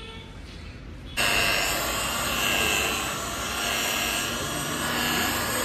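Electric rotary car polisher with a pad starting suddenly about a second in and then running steadily on the car's bonnet, a high whine in it swelling and fading every second and a half or so as the pad is worked over the paint. It is buffing a scratch-removing polish into the bonnet's paintwork.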